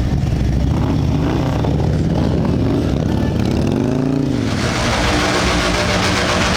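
Motorcycle engine running and revving, its pitch rising and falling once about four seconds in. A loud hissing noise joins it from there on.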